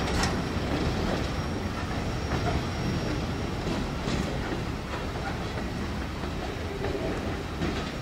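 Freight train's covered hoppers and boxcars rolling by on the rails with occasional wheel clicks over the rail joints, slowly fading as the rear of the train moves away.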